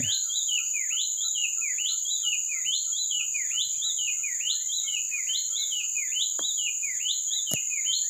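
White-chested babbler (pelanduk dada putih) singing a long, unbroken run of whistled notes, each rising then falling, about three every two seconds, over a steady high insect drone.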